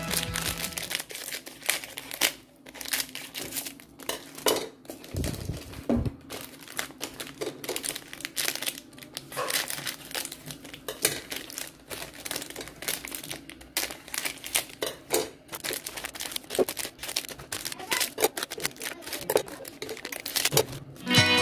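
Foil-lined plastic snack-cake wrappers crinkling and crackling as they are snipped open with scissors and peeled back, in a dense, irregular run of sharp crackles.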